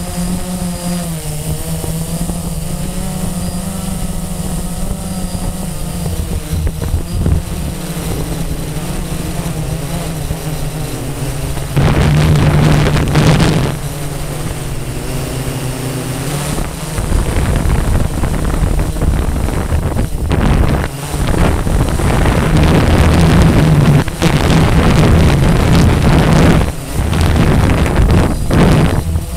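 Blade 350 QX quadcopter's electric motors and propellers humming steadily, heard from a camera mounted on the drone. Wind buffets the microphone in loud gusts, briefly about halfway through and then through most of the second half.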